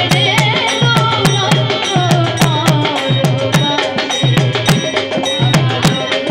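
Live Bengali folk song: a female voice sings a wavering melody over hand drums keeping a brisk, even beat of about four strokes a second, with sharp clicking percussion on top.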